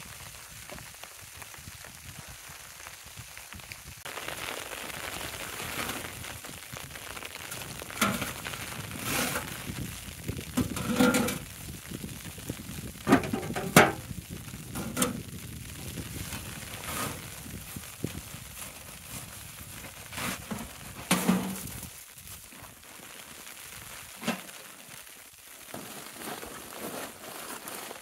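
Food sizzling in a pan on a wood stove, a steady hiss that swells about four seconds in and eases near the end, with a dozen or so sharp knocks and clinks scattered through it.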